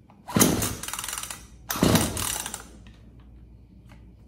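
Craftsman 16-inch 40cc two-stroke chainsaw being pull-started twice, each pull of the recoil starter cranking the engine over for about a second without it catching.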